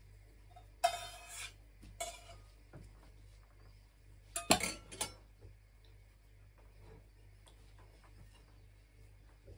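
Spoon, plate and stainless steel mixing bowl clinking and scraping while pancakes are filled and folded. There is a short clatter about a second in, another a second later, and the loudest run of clinks around the middle.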